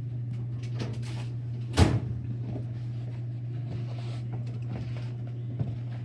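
A steady low hum, with one sharp knock just under two seconds in and a few fainter ticks after it.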